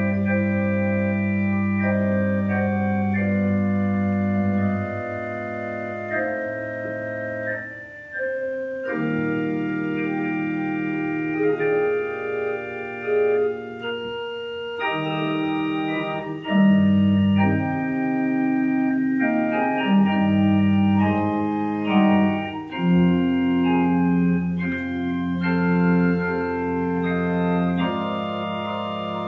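Two-manual church organ playing slow, sustained chords over held bass notes, the chords changing every second or two. There is a brief break in the sound about eight seconds in.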